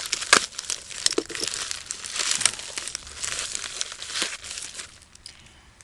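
Packaging crinkling and rustling as a box of brake pads is unwrapped by hand, a dense run of irregular crackles that thins out near the end.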